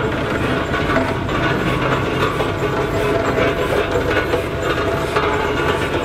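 Aveling & Porter steam road roller on the move: its steam engine chuffing and its gearing and steering chain clanking in a steady run.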